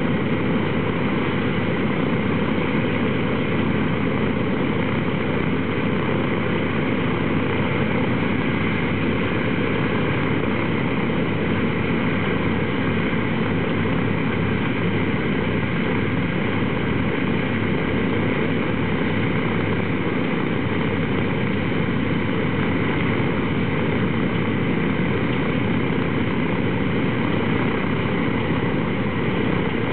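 Boeing B-29 Superfortress's Wright R-3350 eighteen-cylinder radial engines idling on the ground, propellers turning, with a loud steady running sound.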